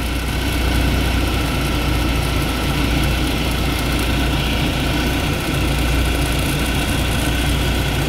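BMW engine idling with the power-steering pump whining steadily, higher tones joining about three seconds in. The fluid in the open reservoir is foaming: the pump's front shaft is worn and the pump is drawing in air, and the thicker 68W hydraulic oil mixed in has not stopped the noise.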